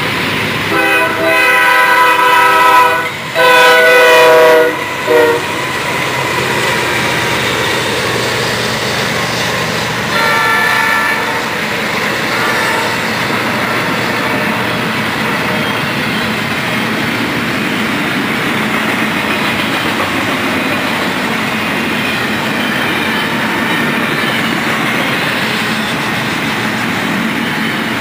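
Freight locomotive horn blowing several blasts, two of them long, in the first few seconds, with one more brief blast about ten seconds in. Then the steady rolling rumble and clickety-clack of a long intermodal train's container well cars passing close by.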